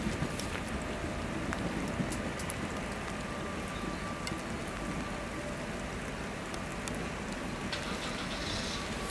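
Steady rain falling on wet tarmac, an even hiss with scattered sharp raindrop ticks.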